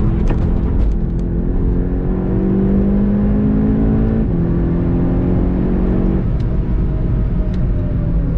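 Onboard sound of a VW Golf 7 GTI TCR's turbocharged four-cylinder engine under hard acceleration, its note rising through the revs and dropping sharply at upshifts about four seconds in and again about six seconds in.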